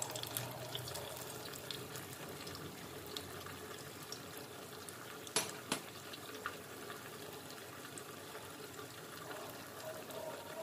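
Ghevar frying in hot oil in a small steel pan, a steady bubbling sizzle. Two sharp clicks come a little over five seconds in.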